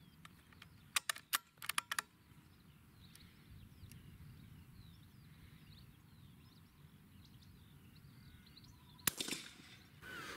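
A single shot from a CZ .22 rimfire rifle firing subsonic rounds, sharp with a short tail, near the end, fired while zeroing the sight. A few sharp clicks come about a second in, with faint birdsong in between.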